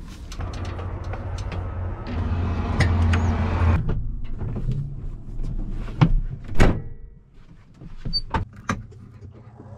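Someone climbing into the cab of a John Deere 8345RT track tractor: rustling and scuffing on the steps, then a series of sharp knocks and clunks from the steps, handrail and cab door, the loudest about six seconds in.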